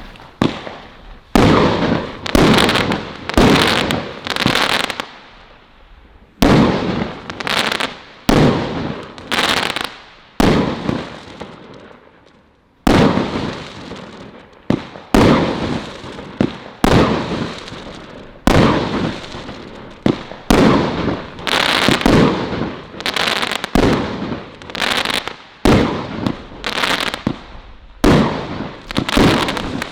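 Celtic Fireworks Colour Crackles firework going off shot after shot, about one a second. Each shot is a sharp bang followed by a second or so of crackling that dies away, with short lulls about five and eleven seconds in.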